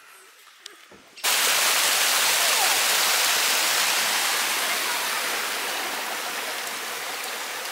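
Small forest brook rushing through a narrow channel of soil and moss: a steady rush of water that starts suddenly about a second in and slowly grows fainter.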